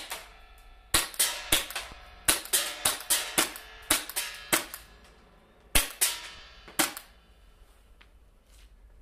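Marushin gas-blowback Nambu Type 14 airsoft pistol firing a rapid string of sharp shots, each with the clack of the action cycling, about three a second, then after a short pause a few more shots that stop about 7 seconds in. The shooter judges the gun slightly prone to malfunction in this string.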